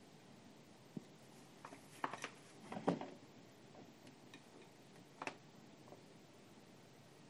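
Light clicks and taps of multimeter test probes and gloved hands handling them as the probe tips are placed on the cable's wires at a terminal block, over a faint steady hiss. One click comes about a second in, a small cluster around two to three seconds in, and another about five seconds in.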